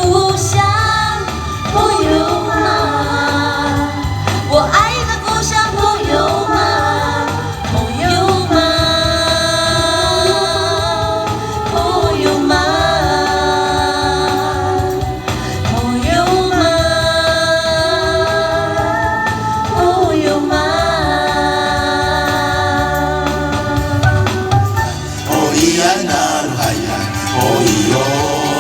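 A song with singing over steady accompaniment, the voices holding long, wavering notes one after another.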